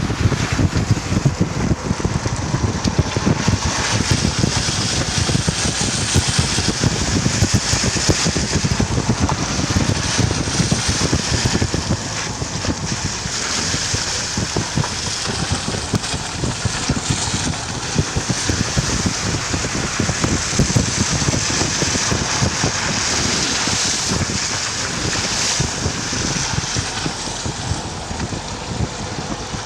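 Steady rushing of water in a rainstorm, with wind buffeting the microphone in gusts.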